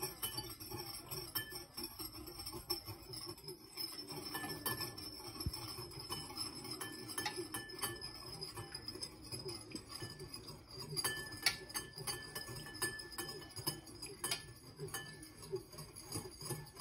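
Metal wire whisk beating vinaigrette in a bowl, its wires clinking lightly and irregularly against the bowl as vegetable oil is whisked in.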